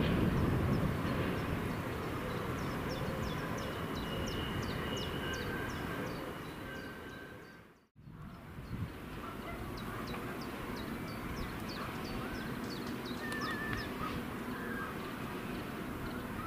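Low rumble of a passing train fading away, with small birds chirping rapidly over it. The sound cuts out about eight seconds in, then a steady low rumble returns with the same quick chirping and a few louder bird calls.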